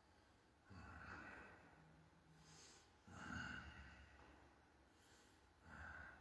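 A man's faint, slow breathing: three soft breaths a couple of seconds apart, otherwise near silence.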